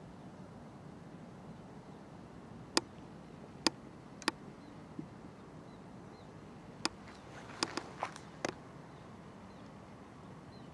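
Quiet lakeside outdoor ambience, a steady low hiss, broken by about eight sharp clicks: a few scattered ones around three to four seconds in, then a quick cluster near eight seconds. Faint high chirps sound now and then.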